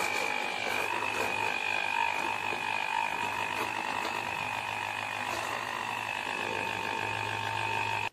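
Electric hand blender with a whipping-disc blade running steadily in a steel bowl of whipping cream, a constant high motor whine that stops abruptly.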